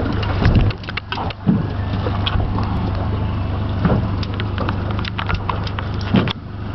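Boat engine running steadily with a low hum, with scattered knocks, clatter and thuds from handling on the deck throughout.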